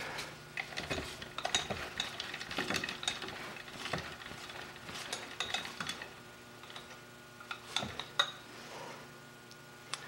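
Irregular metallic clinks and scrapes of steel tools and parts being handled on a milling machine's table and vise, over a faint steady hum.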